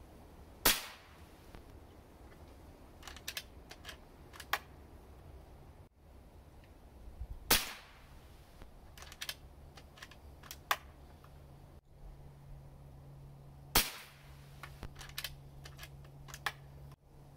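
Air Venturi Avenger .22 PCP air rifle firing three test shots after its regulator and hammer spring were adjusted. Each shot is a sharp crack, the shots come about six seconds apart, and a few lighter clicks fall between them.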